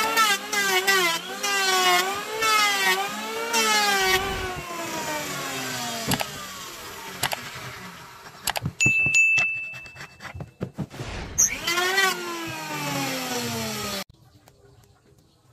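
Electric hand planer cutting a hardwood beam in short passes, its motor pitch dipping and recovering as the blades bite, then winding down about four seconds in. Scattered knocks and clicks follow, with a steady bell-like chime in the middle, before the planer spins up again and winds down in a long falling whine, and the sound cuts off abruptly near the end.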